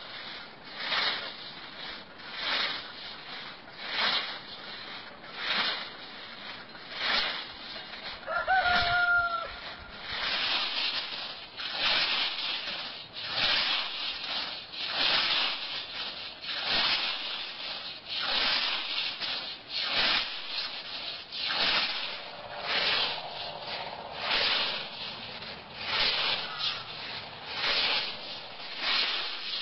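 Hand scythe swishing through grass in fast, even strokes, a little more than one a second. About eight seconds in, a chicken gives one short call.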